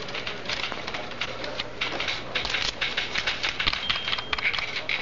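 Rapid, irregular clicking and tapping, many small clicks a second, over a low background bustle, with a brief thin high tone a little before the end.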